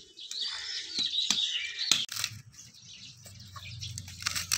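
Small birds chirping, with several sharp knocks of a machete chopping into a coconut husk.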